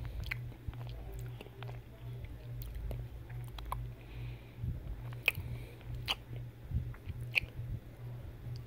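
Close-miked ASMR biting and chewing of pieces of a chocolate egg shell, with sharp crisp crunches every so often, over a steady low hum.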